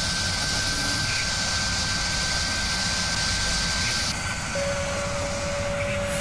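Whirring drill sound effect: a steady machine hiss with a constant high whine, as of a spinning spindle cutting metal. The high hiss drops away about four seconds in and a lower steady tone takes over.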